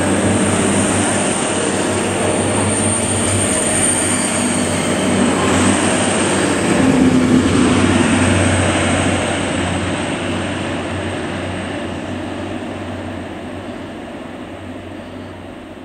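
DB Class 612 diesel multiple unit running past with its diesel engines droning and a thin high whine over them. The sound is loudest as the last car passes, then fades steadily as the train draws away.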